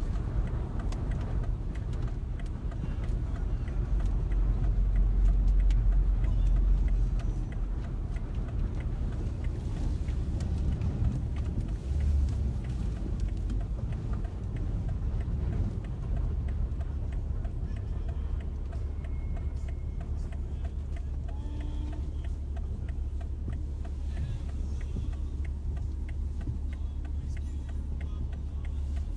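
Steady low rumble of road and wind noise inside a moving car's cabin, swelling louder about four to seven seconds in.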